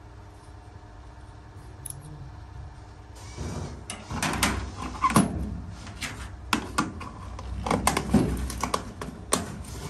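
Small steel slug-mold dies clinking and rattling in a clear plastic box while the box and its lid are handled. It starts about three seconds in as an irregular run of sharp clicks and knocks.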